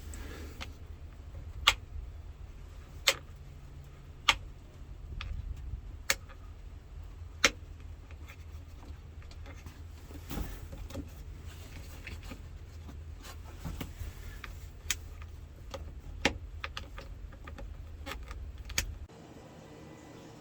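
Sharp, irregularly spaced clicks, about a dozen, the loudest in the first eight seconds, over a steady low rumble that cuts off near the end.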